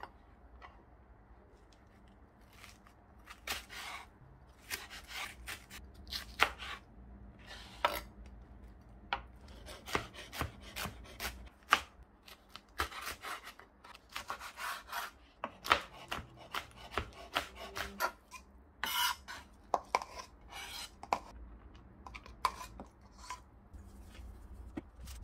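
Irregular knife cuts and scraping on a cutting board during food prep, sharp knocks spaced unevenly with rubbing between them.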